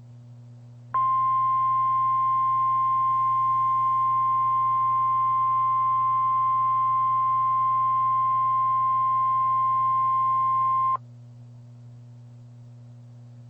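NOAA Weather Radio warning alarm tone: a single steady high tone that starts about a second in, holds for about ten seconds and cuts off suddenly. It is the attention signal announcing that a tornado warning message follows.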